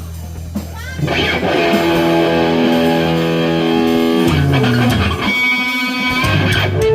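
Electric guitar through an amp during a sound check: a chord rings out for about three seconds, slides down, and is followed by a few higher bent notes.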